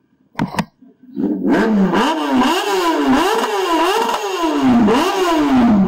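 Kawasaki ZX-10R's inline-four engine revved in repeated throttle blips, the pitch climbing and dropping back about twice a second. Two short sharp pops come about half a second in, before the revving starts.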